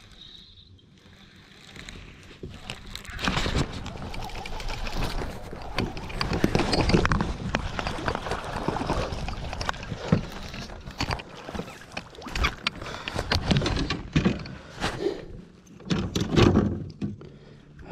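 A hooked bass splashing and thrashing in the water as it is reeled in and lifted into a kayak: a busy, uneven run of splashes and knocks starting about three seconds in.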